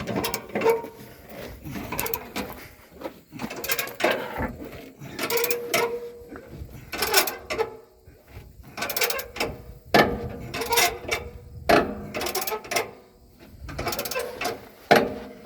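A pickup truck's factory jack being worked by hand under a semi-truck cab, with repeated ratcheting metal clicks about once a second as the cab is raised.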